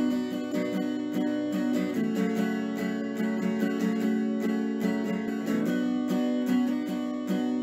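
Background music: an acoustic guitar playing a steady pattern of plucked chords.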